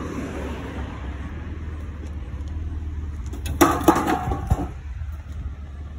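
Rusty steel scrap pieces clanking against each other and the trailer bed as they are dropped in, a quick cluster of metal clanks about three and a half seconds in, over a steady low rumble.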